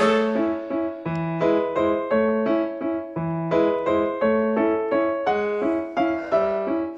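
Outro background music: a light piano tune of evenly paced single notes, about three or four a second.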